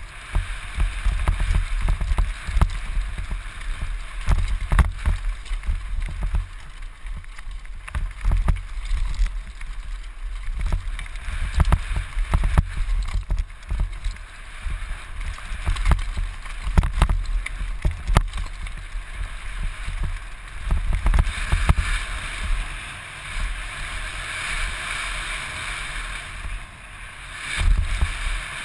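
Helmet-mounted camera's microphone on a downhill mountain bike run: wind buffeting the mic in a heavy low rumble that comes and goes, with the bike knocking and rattling over bumps and the tyres hissing over dirt and dry leaves. The hiss grows louder for a stretch about three-quarters of the way through.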